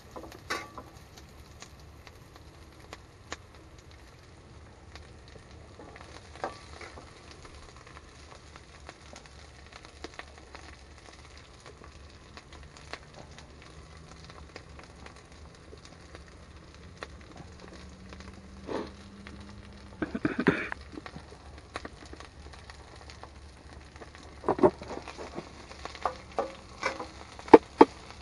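Rice frying in a wok over a gas burner: a faint steady sizzle, broken by scattered scrapes and knocks of stirring against the wok that come thickest about two-thirds of the way in and near the end.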